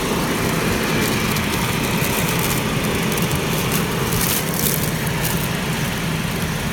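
Steady airflow noise from the climate-control ventilation in a Mercedes-Benz C140/W140 cabin, with the engine idling underneath. A whistle comes from the air duct flap rather than from the heater blower motor.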